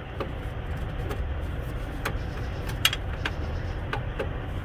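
Scattered light clicks and taps as the bottom collar ring of a Davco fuel filter housing is tightened, over a steady low rumble.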